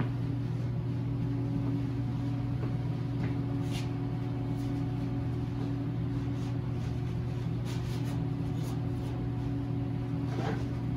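A steady low machine hum, like a motor or fan running, with a few faint, brief scuffing sounds from hands and a rag working over the panel.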